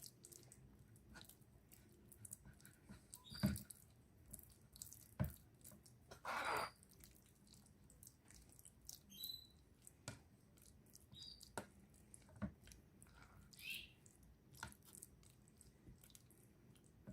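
Faint, sparse clicks and wet squelches of cooked pineapple pulp being crushed in a strainer to press out its juice, with one louder half-second squish about six seconds in.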